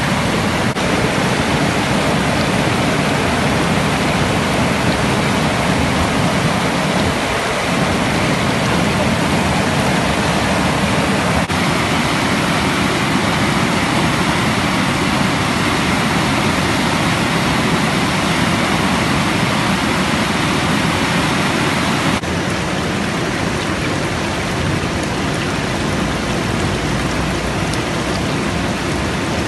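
Steady rush of flowing floodwater, a dense even water noise. It changes abruptly about 11 and 22 seconds in, where the shots cut.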